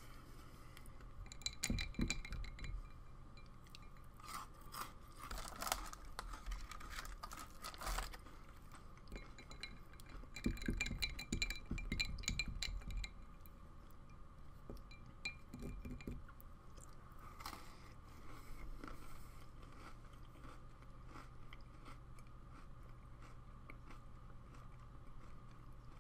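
A person chewing and crunching water-dunked Oreo cookies, in several spells of chewing with quieter pauses between.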